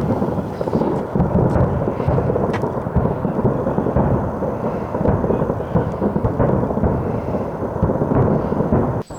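Fireworks display: a dense, continuous run of booming and crackling bursts that cuts off abruptly near the end.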